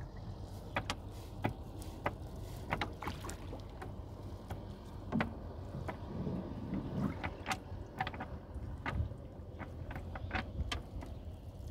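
A wet nylon cast net being handled and picked over on a wooden boat's planks: scattered, irregular light clicks and taps, a few louder knocks among them, over a low steady rumble.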